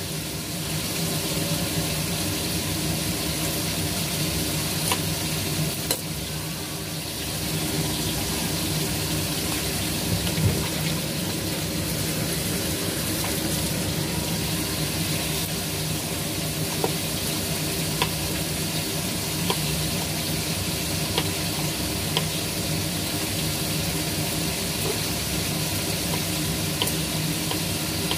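Steady sizzling of food frying in a pan over a constant low hum, with scattered light taps of a knife on a wooden cutting board as string beans and squash are chopped.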